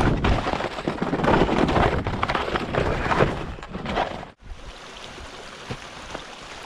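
Skis running through snow with wind on the action camera's microphone: a loud rushing noise that cuts off abruptly about four seconds in, followed by a quieter, steadier rush with a few ticks.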